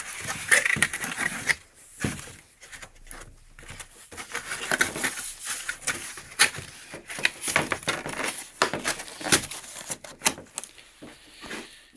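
Rustling, tapping and knocking as things are handled, with many irregular clicks and a few sharper knocks.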